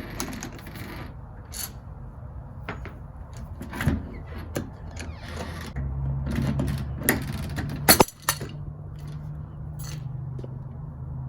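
Clicks, scrapes and rattles of a Schlage keypad deadbolt's interior housing being unscrewed and opened by hand, with two sharp clicks about eight seconds in.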